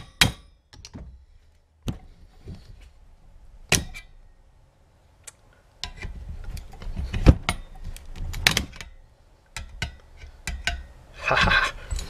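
A hammer strikes once on a screwdriver against the sheet-steel cover of a microwave magnetron. Then come scattered metallic clicks and knocks, busiest around the middle, as the screwdriver pries the clipped-on cover loose.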